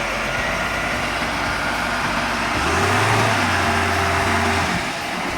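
Heavy vehicle engine running under a dense wash of mechanical noise, with a deep steady engine note coming in for about two seconds midway.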